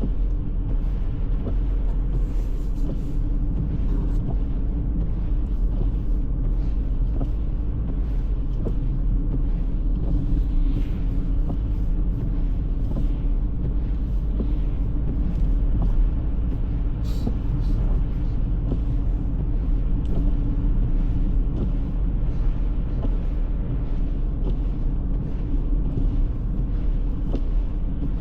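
Car driving at a steady pace, a constant low rumble of engine and road noise.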